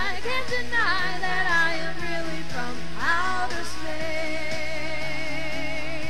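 Pop song: a singing voice over instrumental backing, holding a long wavering note in the second half.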